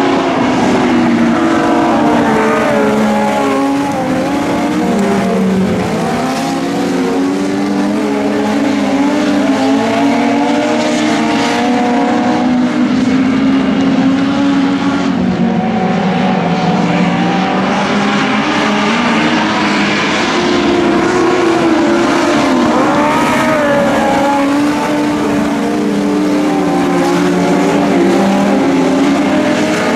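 Several small race cars racing together on a speedway track. Their engines overlap in a loud, continuous drone whose pitch keeps rising and falling as the cars accelerate and ease off.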